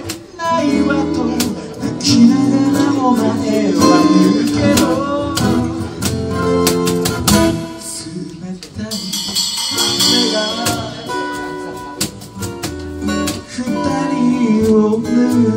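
Live acoustic band music: a man singing over a strummed acoustic guitar, with cajón percussion.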